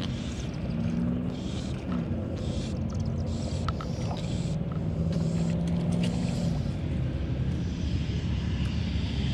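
A steady engine drone over a low rumble, its pitch shifting briefly about two seconds in. A few faint clicks sound about four seconds in.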